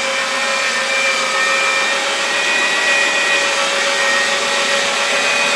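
Electric meat grinder's 800 W copper motor running steadily with a constant whine while beef chunks are pushed through the auger and cutting plate.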